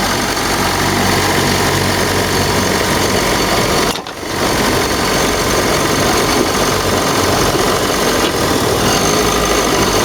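Car engine held at steady revs, with a thin high whistle over the engine noise: the whistling, bell-like noise whose source is being hunted in the engine bay, with the drive belt among the suspects. The sound drops out briefly about four seconds in.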